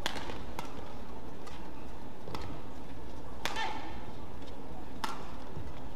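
Badminton rackets striking a shuttlecock in a fast rally: about six sharp, cracking hits, roughly one a second, the strongest at the start and about three and a half seconds in.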